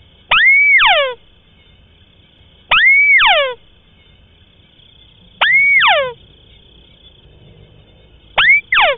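White-browed crake calling, used as a lure call: four harsh calls about every two and a half seconds. Each is a quick rising-then-falling whistle with a fast run of downward-sweeping notes. The last call, near the end, is shorter and broken in two.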